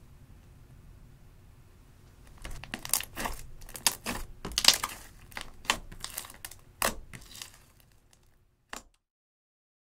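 Thick eyeshadow-blue slime squeezed and squished by hand, giving a run of sharp, wet crackling pops for about five seconds from a couple of seconds in. A single short click sounds near the end.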